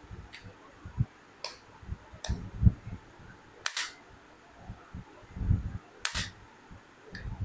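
A series of sharp clicks, about six, the two loudest a little past halfway and later on, with soft low bumps between them: small hard plastic parts being handled close to the microphone, typical of an earbud charging case and its packaging.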